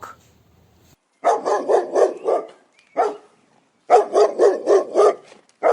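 A dog barking in two quick runs of short barks, about four a second, each run followed by one more bark.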